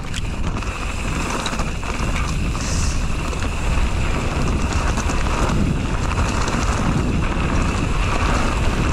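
Wind buffeting an action camera's microphone as a mountain bike gathers speed on a dirt trail, with the bike's rattle and clicking underneath. The noise grows over the first few seconds, then holds steady.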